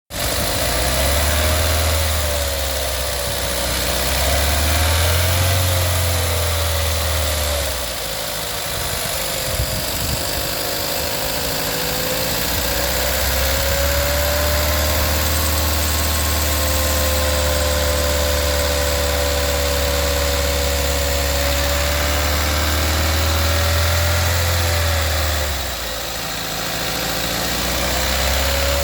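Volkswagen 1.4 TSI (CAXA) four-cylinder petrol engine idling with a constant clicking rattle from its timing chain, the sign of a broken chain guide and a chain that has skipped teeth.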